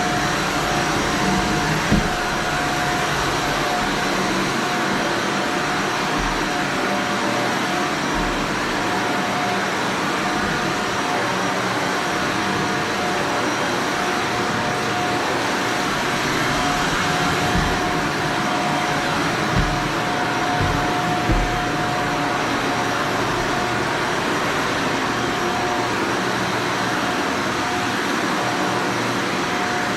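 Vacuum cleaner running steadily on carpet, a constant rushing sound with a steady whine, and a few low bumps along the way.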